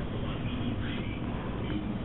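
Rat terrier chewing on a cat's toy mouse, faint under steady background noise.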